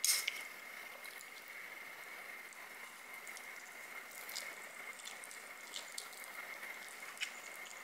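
Close-up eating sounds of saucy stir-fried noodles. A sharp wet mouth smack comes right at the start, then softer scattered wet clicks and chewing as chopsticks feed noodles into the mouth. A faint steady high whine runs underneath.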